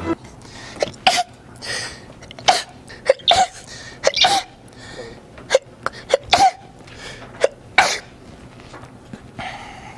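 A quick run of human sneezes: about a dozen short, sharp bursts scattered through ten seconds.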